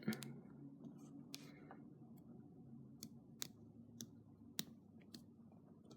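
Faint, scattered small plastic clicks, about half a dozen, from an MX-style keyboard switch being handled and opened with a 3D-printed elastoplastic switch opener.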